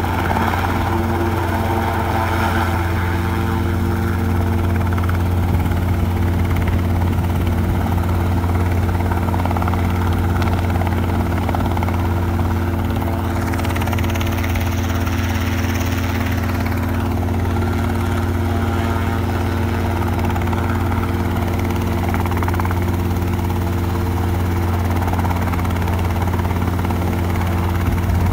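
Light two-bladed helicopter running steadily in a low hover while it pivots in place, a steady low drone of rotor and engine. A higher hiss swells over it for a few seconds midway.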